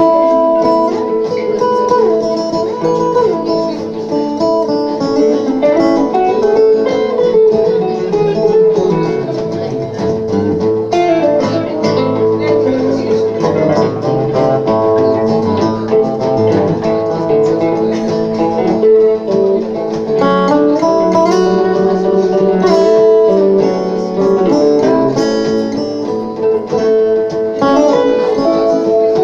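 Two steel-string acoustic guitars and an archtop guitar playing a blues song together, live.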